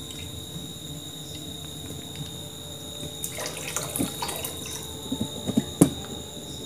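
Milk pouring from a plastic packet into a kadai of milk: a steady stream splashing into liquid. From about three seconds in, the emptied plastic packet is handled, with rustling and a few sharp clicks.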